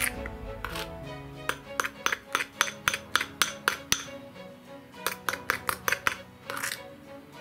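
A spoon clinking against the sides of a glass bowl as it stirs a thick glue mixture, about four quick clinks a second, starting a second and a half in and stopping near the end, over soft background music.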